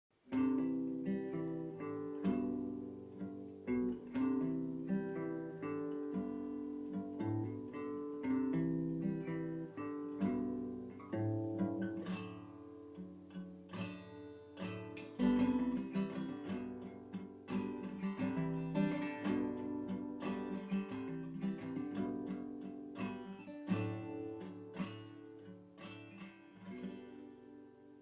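Instrumental intro music of plucked notes, fading out over the last few seconds.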